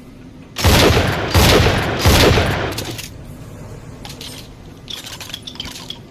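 Double-barrel shotgun sound effect: three loud shots in quick succession, about two-thirds of a second apart, each trailing off. About two seconds later comes a run of lighter clicks.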